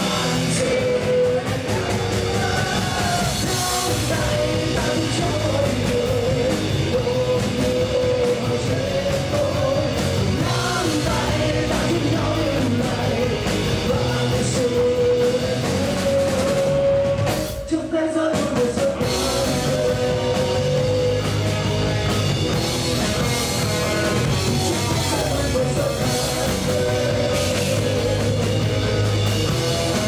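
Live rock band playing: a male singer over electric guitars and a drum kit, with a brief stop about eighteen seconds in before the band comes back in.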